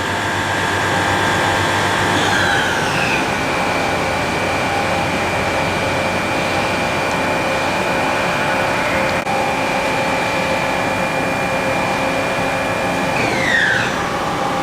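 Milltronic HBM 4 horizontal boring mill spindle and its two-speed geared head running with a steady gear whine. The pitch falls about two seconds in as the spindle slows from 3,000 to 2,000 RPM, then holds steady. Near the end it falls again to about half as the spindle slows to 1,000 RPM.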